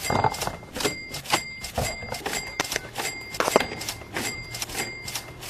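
A quick series of knocks, about two to three a second, many with a short bright ding ringing after them, as plastic drink bottles are pushed one after another into a car's door pocket and seat-back pocket.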